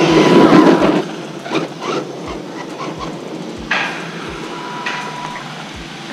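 A brushless-powered 1:8 RC monster truck at the end of a speed run: a loud rush of motor and tyre noise in the first second, then quieter scattered clicks and knocks.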